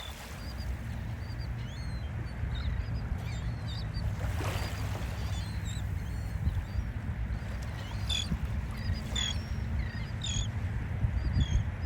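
Many short, high bird chirps and calls, most frequent in the second half, over a steady low rumble.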